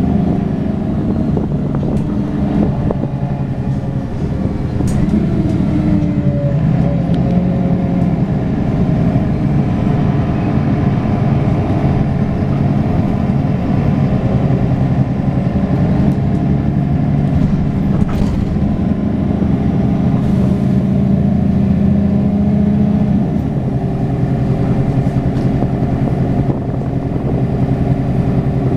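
Mercedes-Benz Citaro O530 city bus's OM906hLA six-cylinder turbo diesel heard from inside the bus while driving. The engine note shifts in pitch a couple of times as the bus slows and picks up speed, over steady road noise and a few brief clicks.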